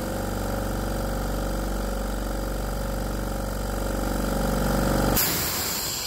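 AEG air compressor's electric motor and pump running steadily under load, then cutting out abruptly about five seconds in as the pressure switch opens its contacts at about 100 psi. A sudden hiss of air from the unloader valve follows the cut-off.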